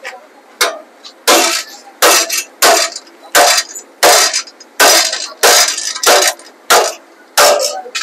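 A heavy hand hammer striking the steel rings of a baler roller, about eleven sharp metallic blows at a steady pace of roughly three every two seconds, each ringing briefly. The rings are being tapped on one side so they don't rub against the rods.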